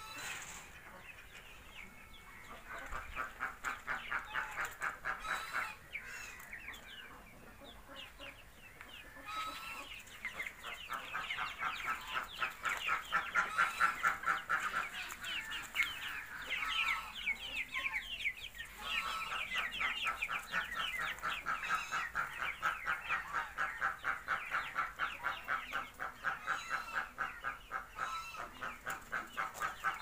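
A crowd of poultry chicks peeping together, a dense run of rapid, high, falling cheeps, dropping away for a few seconds twice before picking up again.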